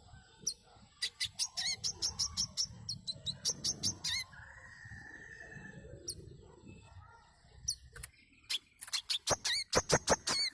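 Sunbird (burung manggar) calling in rapid runs of sharp, high chirps: one run from about a second in to about four seconds, a short held whistle just after, then a faster, louder run of chirps from about eight and a half seconds on.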